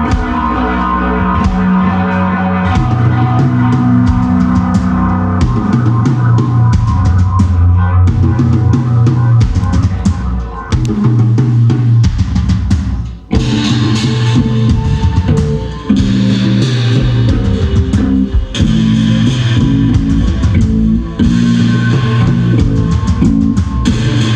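Live band playing an instrumental passage with drum kit, guitar and bass. It drops out briefly about halfway through, then comes back in fuller and brighter.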